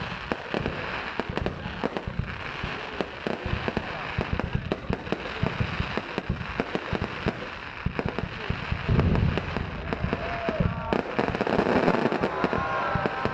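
Fireworks display: a dense, continuous run of bangs and crackling pops, with heavier booms about nine seconds in and again near the end, and people's voices mixed in.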